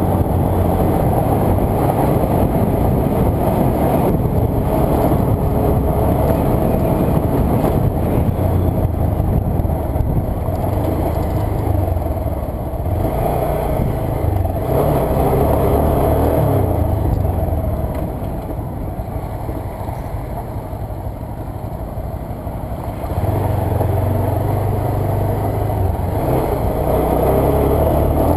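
Motorcycle engine running under way on a dirt road, rising and falling with the throttle; it eases off and goes quieter about two-thirds of the way through, then picks up again.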